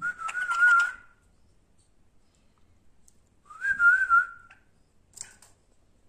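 White-eared bulbul giving two warbling whistled notes, each about a second long and held near one pitch: one at the start and one about three and a half seconds in. A couple of faint short chirps follow about five seconds in.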